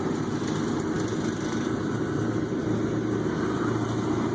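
Car engines running at low speed, a steady mechanical sound with no clear change.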